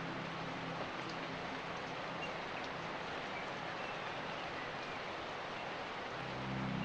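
Steady rain, an even hiss. Soft low background music fades out in the first second and swells back in near the end.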